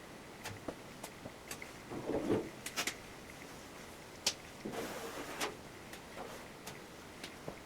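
Scattered light clicks and taps, with two brief stretches of rustling or scraping handling noise, one about two seconds in and one around five seconds in.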